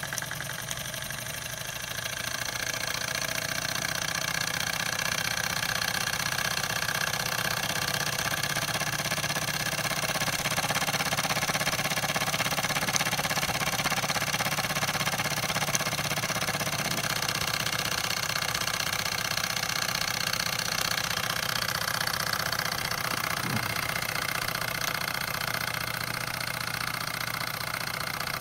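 Wilesco D10 toy stationary steam engine running steadily: a fast, even chuffing from the small cylinder as the flywheel spins. Its vibration makes it rattle loudly on the ceramic tile it is sitting on.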